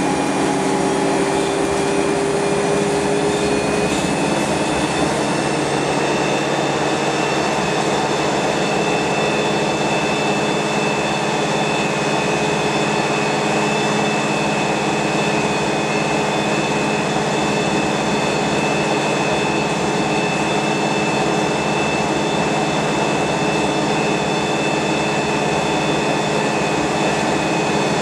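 Wright StreetLite single-deck bus under way, heard inside the passenger saloon: steady engine, drivetrain and road noise with a constant high whine, the engine note climbing slightly over the first few seconds.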